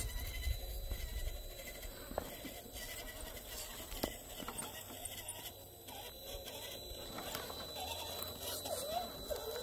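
RC rock crawler on a Redcat Wendigo chassis climbing over rocks. Its electric motor and drivetrain whine, wavering up and down in pitch with the throttle near the end. There are a couple of sharp knocks, about two and four seconds in, as the tires drop onto rock.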